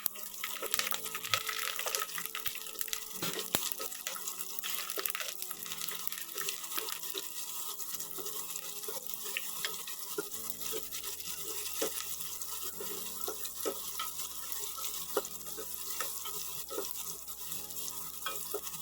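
Garlic cloves frying in hot oil in a pan: a steady sizzle dotted with many small crackles and pops while the cloves brown.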